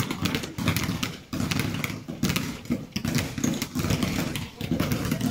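Several basketballs being dribbled at once on a gym floor, an uneven run of bounces echoing around the hall.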